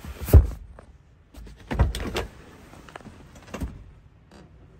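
Thuds and clunks of parts in the rear of a car cabin being handled: a sharp thud about half a second in, a double clunk around two seconds, and a softer knock later.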